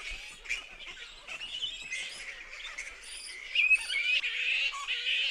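A roosting colony of flying foxes (fruit bats) screeching and chattering: many high squabbling calls overlapping, louder from about three and a half seconds in.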